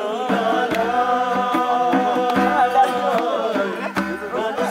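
Voices singing along to a strummed acoustic guitar, holding one long note through most of the stretch.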